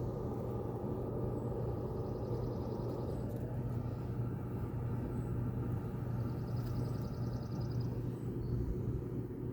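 Clothes dryer running, blowing its exhaust air out through the wall vent: a steady low hum over a rushing of air. Faint high trills of rapid ticks come through twice.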